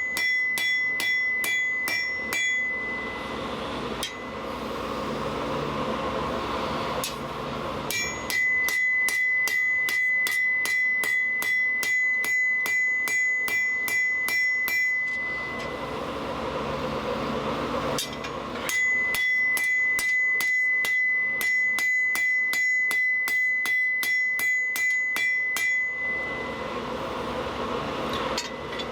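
Blacksmith's hammer striking hot steel on an anvil in three bouts of steady blows, about three a second, each blow with a bright ringing note from the anvil. Between bouts there is a steady rushing noise.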